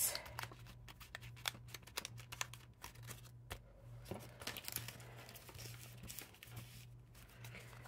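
Paper planner pages and inserts rustling and crinkling as they are handled and leafed through, with many small scattered clicks.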